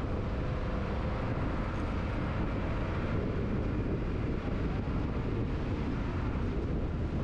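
Car driving at speed: steady engine and tyre-on-road noise.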